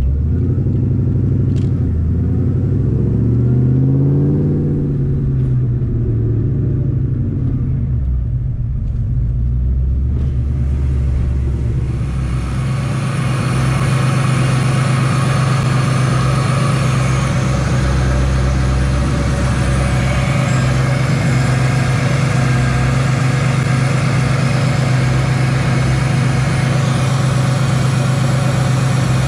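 Supercharged 4.6 L V8 of a 2003 Ford Mustang SVT Cobra with a Whipple supercharger, heard from inside the cabin while driving, its pitch rising and falling a few seconds in. From about twelve seconds in, the same engine idles steadily in the engine bay under a loud, even rushing noise.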